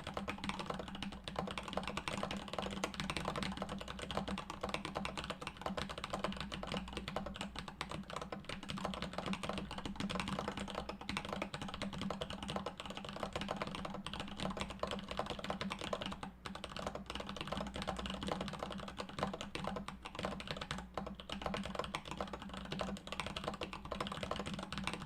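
Continuous fast typing on a 40% mechanical keyboard with Durock Sunflower T1 tactile switches, polycarbonate plate and DSA keycaps: a dense, unbroken run of clacky keystrokes.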